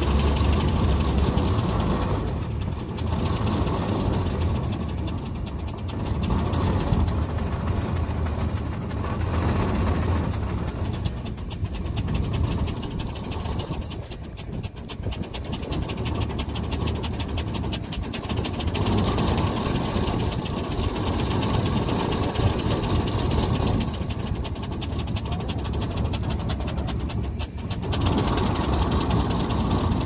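Steam engine of a narrow-gauge steam pile driver running on steam piped from a locomotive, with a rapid, steady mechanical beat that eases briefly around the middle and again near the end.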